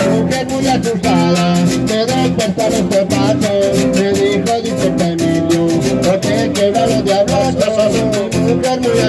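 A live Colombian parranda band playing: plucked guitars carrying the melody over a bass line and a steady percussion beat.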